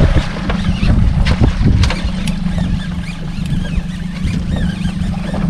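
Wind rumbling on the microphone aboard a small boat at sea, with a few sharp clicks or knocks in the first two seconds.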